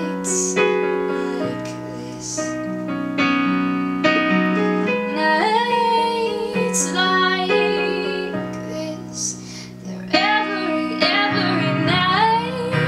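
A woman singing to her own accompaniment on a Korg digital piano, held chords ringing under the sung melody.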